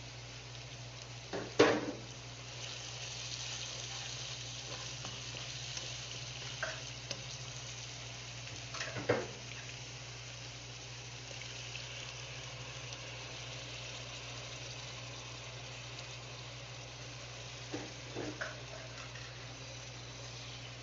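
Rice frying in oil with tomato-onion masala in a non-stick pan, sizzling steadily while a plastic spatula stirs it. A few sharp knocks of the spatula against the pan, the loudest about a second and a half in, another about nine seconds in, and a couple of lighter ones near the end.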